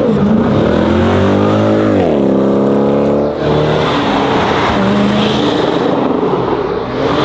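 Loud car engines running hard and revving, their pitch falling about two seconds in as the throttle comes off, then holding at a lower pitch.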